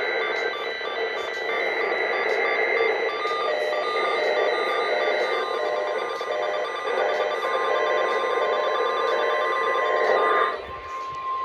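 Weather radio receiver audio: a dense, static-laden signal with steady tones woven through it, which cuts out near the end and leaves a single steady tone, the NOAA Weather Radio warning alarm tone that heralds an emergency alert.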